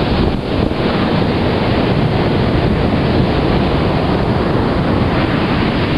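Steady wind buffeting the microphone, with the wash of surf on the shore.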